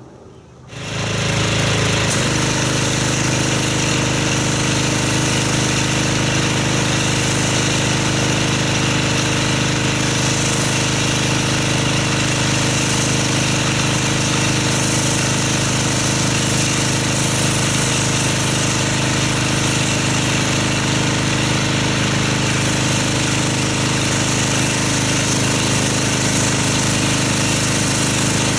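Pressure washer starting up about a second in and then running steadily, its motor and pump humming under the hiss of the water jet as foam is rinsed off a car.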